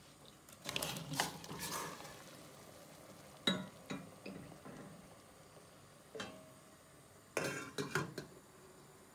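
Raw potato chunks tipped from a glass bowl splash and tumble into a stainless steel pot of water, the bowl knocking against the pot. A few sharp clinks follow, and near the end a pot lid is set on with a short clatter of clinks.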